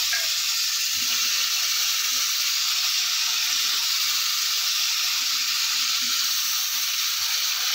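Potato pieces sizzling steadily in hot oil in a steel kadai as they are lightly fried.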